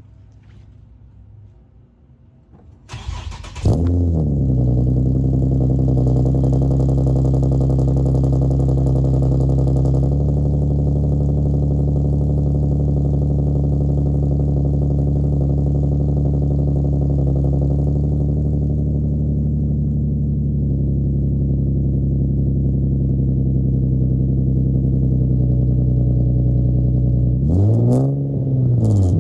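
A car engine starts about three seconds in, a short crank and then a catch with a rev flare, and settles into a steady idle with a deeper tone through an aftermarket exhaust with test pipes and an added resonator. Near the end the engine is revved once, pitch rising and falling.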